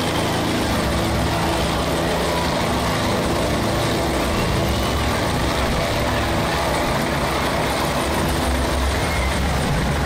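Helicopter hovering low overhead: a loud, steady drone of rotor and engine that holds at an even level throughout.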